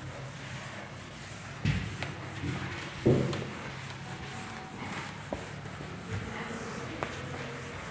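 Whiteboard being wiped with a duster: soft rubbing strokes with small clicks, and two dull thumps, about a second and a half in and again about three seconds in, the second the loudest.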